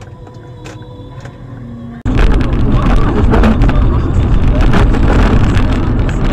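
A car's road and wind noise, loud and rough, heard through a dashcam microphone inside the car as it drives close beside a tanker truck; it starts abruptly about two seconds in, after a quiet steady hum.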